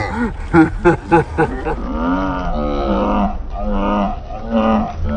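A group of people shouting, yelling and cheering, with long drawn-out whoops and laughter rather than words, over a low rumble of wind on the microphone.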